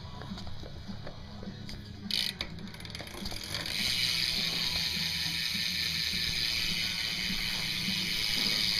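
BMX rear hub's freewheel ratcheting as the back wheel spins. Scattered clicks at first, then from about three and a half seconds in a fast, steady buzz of clicking.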